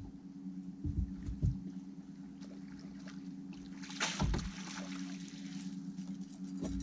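Boat motor running steadily at trolling speed, with a splash and rush of water about four seconds in as a small trout is scooped into a landing net and lifted from the water.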